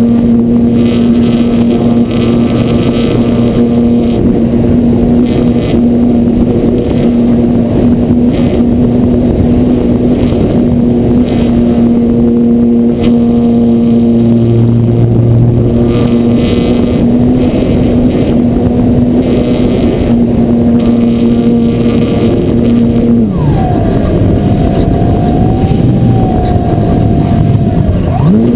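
Electric motor and propeller of an RC trainer airplane, heard from a camera on board, running at a steady pitch under heavy wind rush. About 23 seconds in, the pitch falls away as the throttle is cut back. It rises again just before the end as the throttle comes back up.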